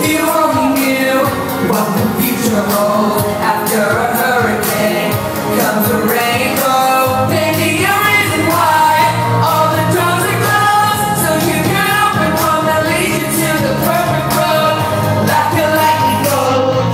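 Live pop song performance in a concert hall: singing over a loud band backing, with a heavy bass line coming in about seven seconds in.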